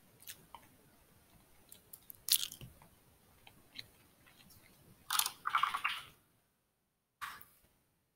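Computer mouse and keyboard clicks: a few scattered clicks, then a quick run of keystrokes about five seconds in as a word is typed, and one more keystroke near the end.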